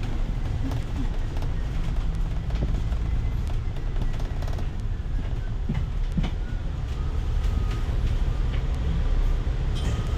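Hong Kong bus heard from inside the cabin while moving: a steady low rumble of engine and road noise, with scattered light rattles and clicks.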